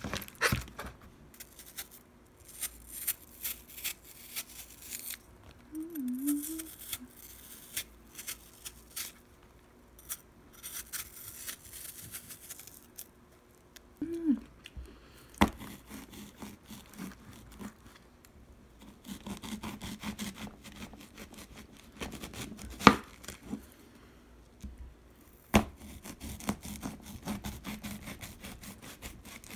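Kitchen knife peeling and slicing a crisp apple held in the hand, a run of scraping, crunching cuts, then the blade cutting into a large Asian pear. Several sharp knocks of the knife stand out, the loudest about 23 seconds in.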